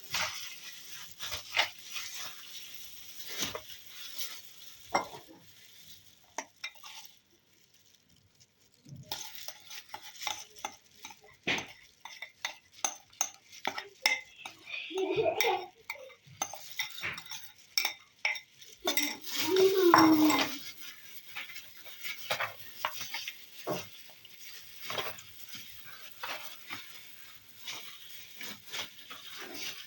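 Hands working spice-rubbed raw pork ribs in a mixing bowl: wet rubbing and squelching with many small clicks and knocks of bowl and utensils, pausing briefly about seven seconds in. Two short pitched sounds stand out, near the middle and, louder, about two-thirds of the way through.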